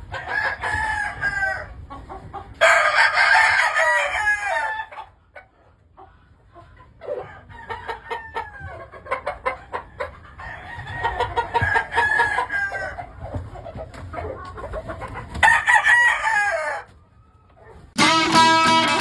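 Gamefowl roosters crowing one after another, about five crows of a second or two each, with clucking and short calls between them. Guitar music starts about a second before the end.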